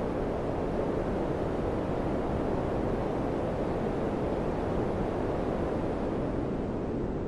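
Daikin FCQ100KAVE4 air conditioner running: a steady rush of fan and airflow noise.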